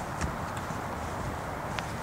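Outdoor background noise: wind rumbling on the microphone, with a couple of faint clicks.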